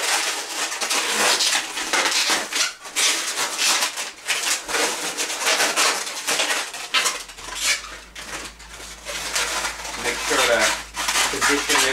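Latex 260 modelling balloons squeaking and rubbing as they are twisted and tucked together by hand, with a few short pitched squeals near the end.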